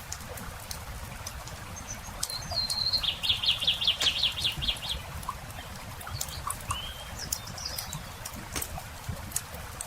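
Campfire crackling with scattered sharp pops over a low rumble. About two seconds in a songbird sings a short held note, then a rapid trill of about two seconds, and gives one more brief note a few seconds later.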